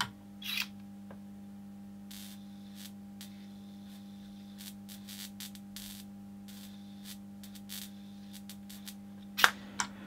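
A high-voltage tester set to 3750 volts hums steadily while its probe is held over a wire connector. Faint, irregular crackles of small sparks come from capacitance between the two wires, not from an insulation breakdown; the tester does not trip. There is a small click about half a second in and a sharper one near the end, as the hum's upper tone stops.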